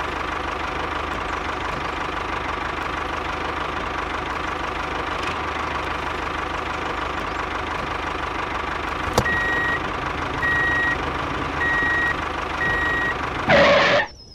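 Tractor engine running steadily. Partway through, four evenly spaced reversing beeps sound over it, and a brief loud burst comes just before the sound cuts off.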